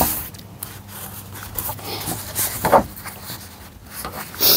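Nylon shell fabric of a down jacket rustling under hands that press and smooth an adhesive repair patch onto the sleeve, in short irregular rubs.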